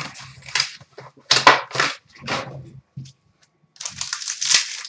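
Packaging of a trading-card pack being torn open and crinkled by hand, in irregular rustling bursts, with a longer continuous crinkle near the end.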